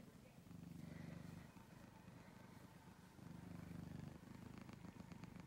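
A cat purring quietly close to the microphone, a low rumble that swells twice with its breathing, each swell lasting about a second.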